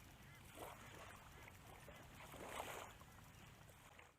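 Near silence at the water's edge: faint small waves lapping on the shore, with two soft splashes about half a second and two and a half seconds in.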